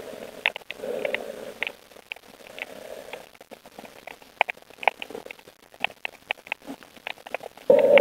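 Sound recorded underwater on a rocky reef: irregular sharp clicks, several a second, over a patchy low hum that swells into a louder rush near the end.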